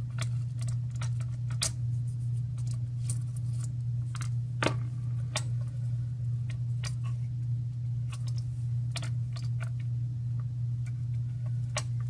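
Irregular small clicks and taps from hands turning a nut on a radio transmitter's toggle switch, one sharper click about four and a half seconds in, over a steady low hum.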